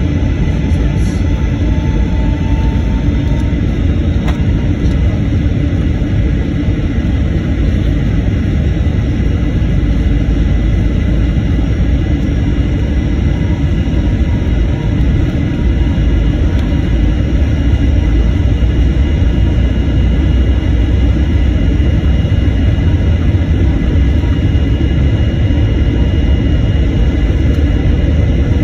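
Airplane taking off: a loud, steady rumble of engines and roll that grows slightly louder about two-thirds of the way through.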